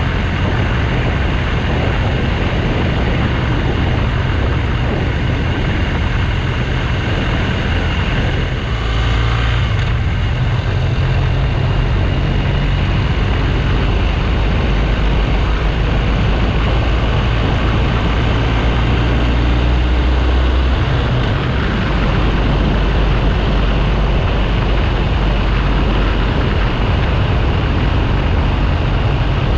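BMW R1200GS Adventure's boxer-twin engine running under way, with heavy wind and road noise over the camera microphone. The low engine note shifts a few times.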